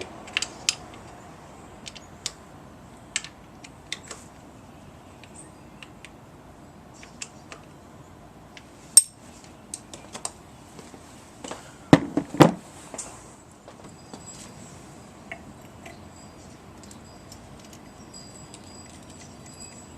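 Hand tools clinking and tapping on the engine top: scattered sharp metallic clicks, with louder knocks about 9 seconds and 12 seconds in, as a wrench is worked on the valve cover bolts and tools are handled.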